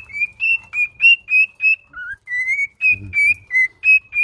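Cockatiels calling in a rapid series of short whistled chirps, about three a second, with one lower rising note about halfway through.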